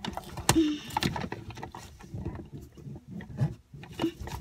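Irregular knocks, taps and rustles of a cardboard box fort and a hand-held battery LED lantern being handled close to the microphone.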